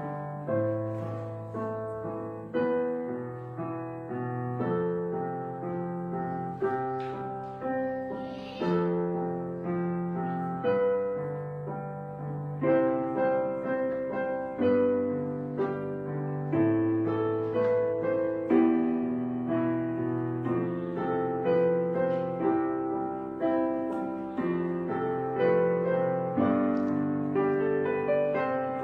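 Background piano music: a gentle piece of chords and melody notes, each note struck and then fading.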